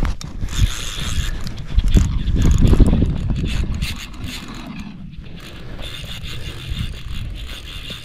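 Fly reel ratcheting in two stretches, from about half a second to nearly two seconds in and again from about five and a half seconds on, while a hooked salmon is played on the fly rod. Wind rumbles on the microphone underneath, loudest around two to three seconds in.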